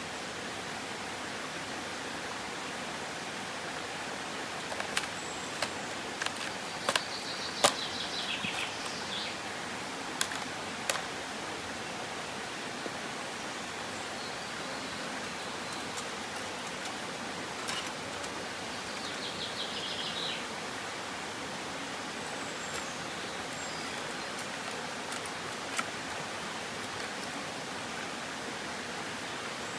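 Steady rush of creek water, with several sharp clicks, the loudest about eight seconds in, and two short bird calls.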